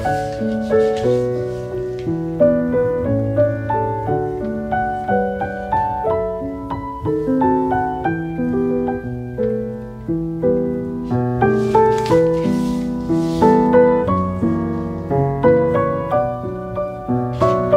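Background piano music: a gentle melody of single struck notes over low chords. A brief soft rustle is heard twice, once about twelve seconds in and once near the end.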